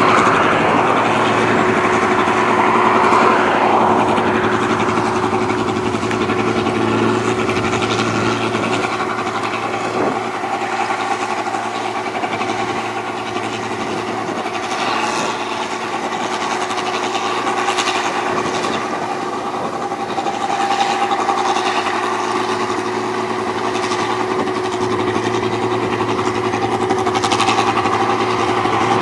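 Rice combine harvester running steadily as it works the paddy, a continuous engine hum with a steady pitch.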